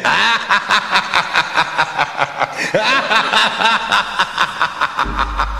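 A voice cackling in a fast, even run of short laughs, about five a second. A low steady drone comes in near the end.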